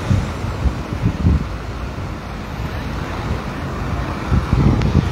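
Road traffic of a busy city street, cars running past at low speed, with wind buffeting the phone's microphone in irregular low gusts.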